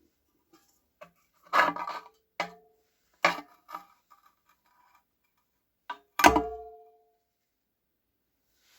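Metal parts of a kerosene lamp being handled and set down: a handful of knocks and clinks, some ringing briefly, the loudest about six seconds in.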